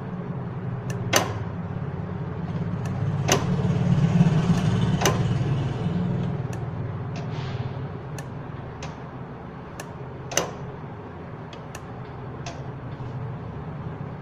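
Suzuki G10B turbo engine running, growing louder for a few seconds as the throttle is opened, then settling back toward idle. Sharp clicks sound now and then throughout.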